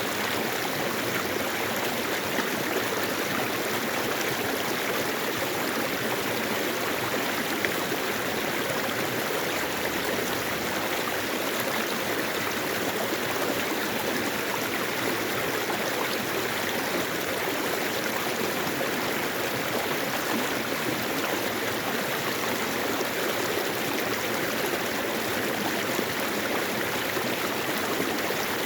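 Mountain valley stream, water rushing and gurgling in a steady, unbroken flow.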